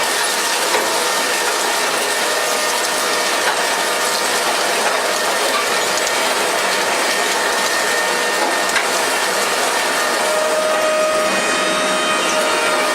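Satrind refrigeration fan motor running with a steady, continuous mechanical noise.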